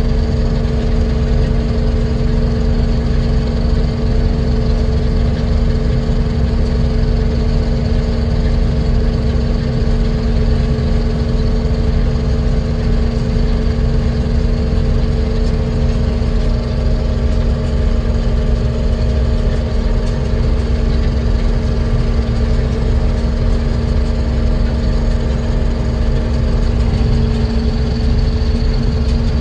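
Heavy farm machinery's diesel engine running steadily under a constant load, with a steady low rumble and an even hum.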